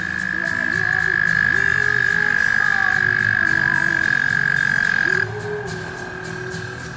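Male American toad giving its long, steady, high-pitched trill, the mating call. It cuts off abruptly about five seconds in, leaving a fainter, slightly lower trill from another toad.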